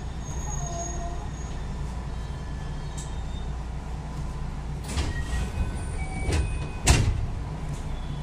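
Inside a 221 series electric train: a steady low rumble with a faint hum. A few knocks come about five to six seconds in, then one louder sharp bang about seven seconds in.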